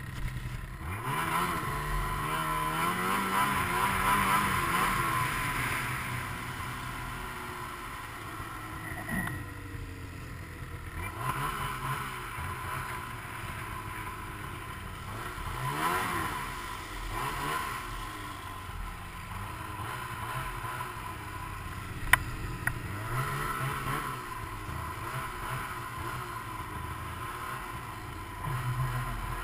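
Ski-Doo GSX 500SS snowmobile's two-stroke engine running under way, revving up in the first few seconds, then easing off and picking up again several times. A single sharp click comes about two-thirds of the way through.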